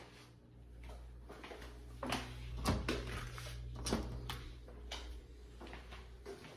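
Scattered knocks and clicks over a steady low hum, the loudest about two to four seconds in: footsteps on a tile floor and handling of a handheld phone.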